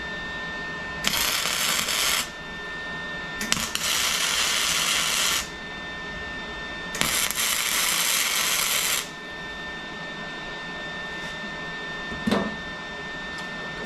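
Wire-feed welder arc crackling in three bursts of about one to two seconds each as a metal bar is welded onto a metal cup. A steady high-pitched whine runs underneath.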